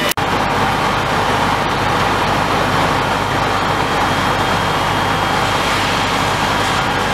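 Fire engine running steadily as it pumps water to an aerial ladder's jet, heard as a loud, even, unchanging rush of engine and water noise.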